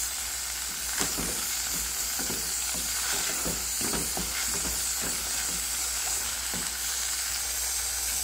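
Chopped tomato, bell pepper, onion and garlic sizzling as they sauté in a little oil in a pot, with a steady hiss. A wooden spoon stirring them makes irregular light knocks and scrapes throughout.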